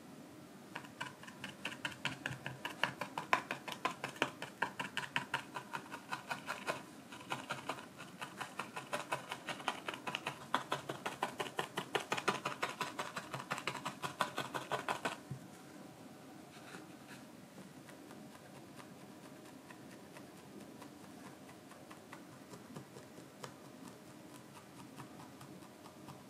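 Felting needle stabbing over and over through wool roving into a foam felting pad: quick, even pokes, several a second, that stop suddenly a little past halfway.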